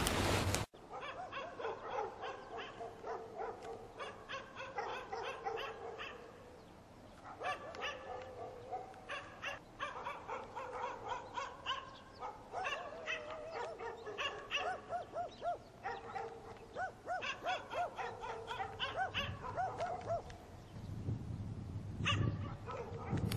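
Dogs barking and yipping in runs of short, quick calls, with brief pauses between the runs.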